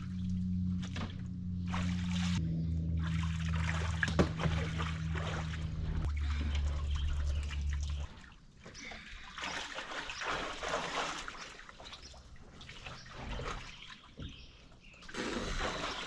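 Jet boat engine running slowly, its note dropping in a few steps before it cuts off about halfway through. Then water trickling and splashing.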